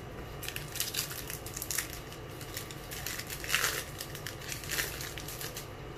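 Foil wrapper of a 2018 Topps Series 1 baseball card pack crinkling and tearing as it is pulled open, in a run of short crackly rustles, the loudest a little past halfway.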